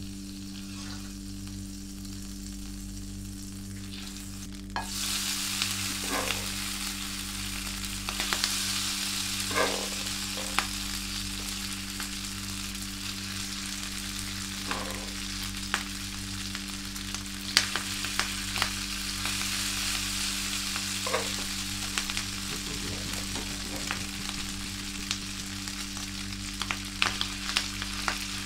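Butter melting in a hot pan with a faint sizzle, then about five seconds in a sudden loud frying sizzle as chopped pork sisig goes into the pan. A wooden spatula scrapes and taps in the pan as the sisig is stirred, over a steady low hum.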